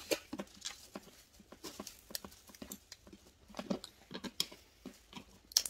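Red snow crab shells being cracked and picked apart while eating: a string of short, irregular clicks and crackles, the sharpest near the end.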